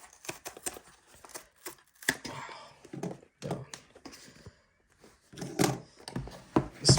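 Packaging being handled and torn open: scratchy tearing and crinkling with light clicks and taps, and a few louder knocks near the end.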